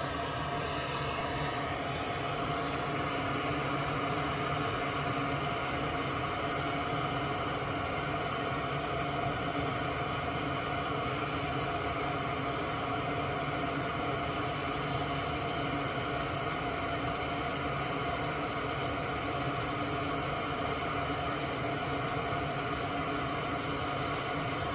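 Steady whirring hiss from a small motor or fan, with several steady tones in it and no change in level.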